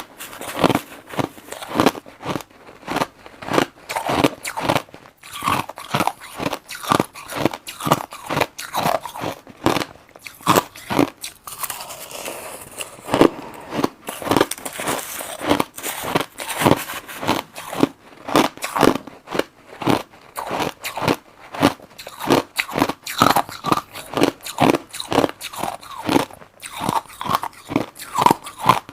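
Crushed ice being bitten and chewed close to the microphone: a steady run of sharp crunches, about two or three a second, with a softer stretch of chewing about halfway through.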